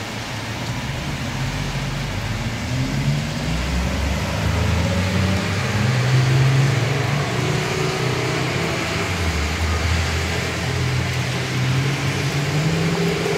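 Heavy rain falling steadily, with cars driving along the wet road. Their engine hum and tyre noise swell and fade under the rain's hiss.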